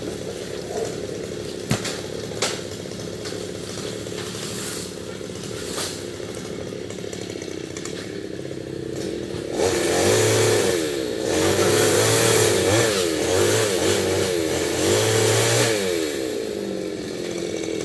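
New West Professional 588 chainsaw running at a steady low speed, with a couple of sharp knocks about two seconds in. About halfway through it is opened up and cuts into the fallen coconut palm, its engine pitch rising and falling under load for several seconds before easing back toward idle near the end.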